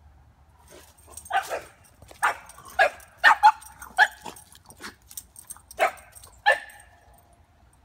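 Small dog barking in a quick, sharp series of about eight barks at a squirrel beyond the fence, the last bark trailing off briefly.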